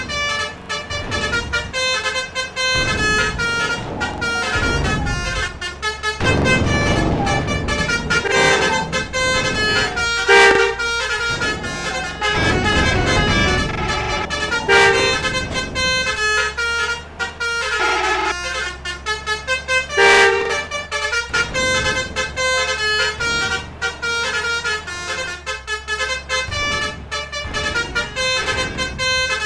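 Indonesian 'telolet' multi-tone musical air horns (basuri trumpet horns) on vehicles, playing quick tunes of rapidly changing notes over running engines. Two louder, deeper horn blasts come about ten and twenty seconds in.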